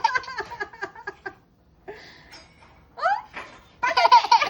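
Baby laughing: a run of short giggles, a pause, then a rising squeal and loud laughter near the end.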